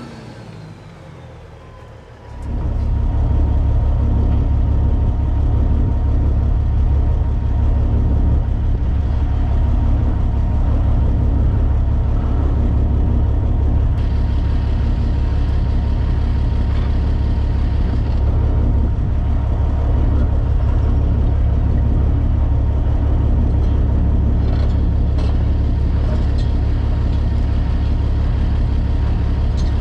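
Heavy diesel engine idling steadily, loud and low-pitched, coming in abruptly about two seconds in after a quieter start.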